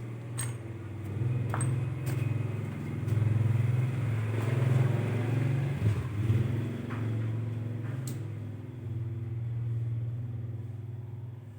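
An engine running with a steady low hum that swells and fades slowly. A few sharp metallic clicks sound over it, about half a second in, around one and a half and two seconds in, and near eight seconds.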